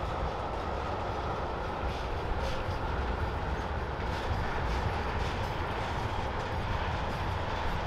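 Freight train of railroad tank cars rolling steadily past: a continuous rumble of steel wheels on rail, with faint irregular wheel clicks.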